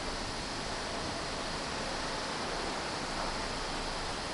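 Steady, even hiss with no distinct events from an R46 subway train standing stopped at the platform.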